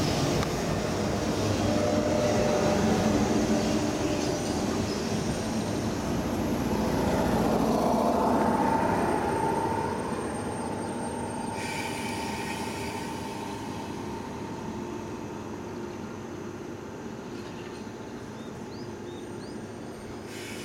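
A 485 series express electric train rolls slowly past into the station, its wheels and brakes squealing as it slows. It comes to a stop about halfway through and then stands with a quieter, steady hum.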